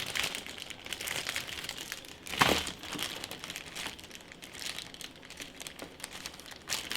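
Packaging crinkling and rustling as the CPU cooler's mounting bracket and accessories are handled, with one louder clack about two and a half seconds in.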